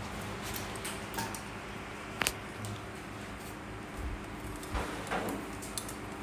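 Quiet kitchen room tone: a steady low hum with a few light clicks and knocks, about four in all, of things being handled.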